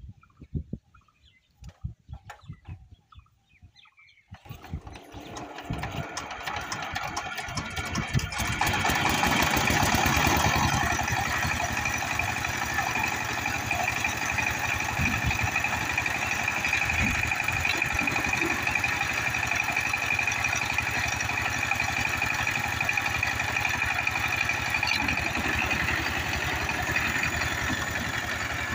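Single-cylinder diesel engine of a two-wheel power tiller starting: a few slow, uneven thumps, then it catches about four seconds in and speeds up, settling into a loud, steady run from about eight seconds on.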